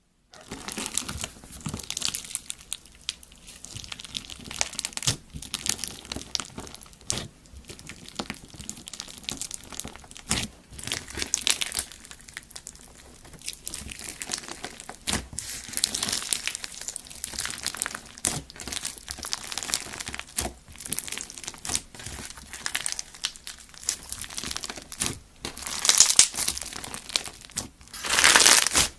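Slime being worked by hand, giving a dense run of crackling, clicking and small pops, with louder bursts near the end.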